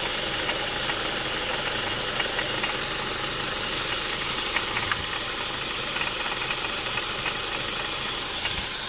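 2002 Ford Mondeo's Duratec HE four-cylinder petrol engine running, with a light rattle of irregular ticks from around the pulleys. This is the intermittent rattle the owner hears more when the engine is hot; he has ruled out the exhaust, and the cause is unknown.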